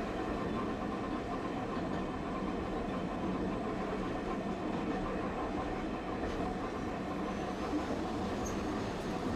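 Tosaden streetcar running steadily along street track, heard from inside the car: an even rumble of the tram and its wheels on the rails.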